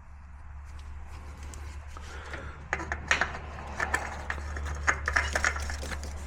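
Small clicks and rubbing from handling a new oil filter while its rubber seal is smeared with oil, growing busier after a couple of seconds, over a steady low hum.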